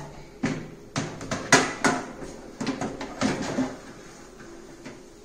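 Kitchen handling noise: a run of sharp knocks and clicks, like hard kitchenware or oven hardware being moved, over the first three and a half seconds.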